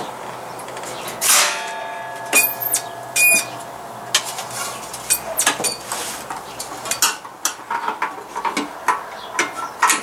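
Sheet-metal parts of a kerosene heater clinking and knocking as the burner assembly is handled and set onto the heater base. A strike about a second in rings on briefly, then a string of smaller metallic clicks and taps follows.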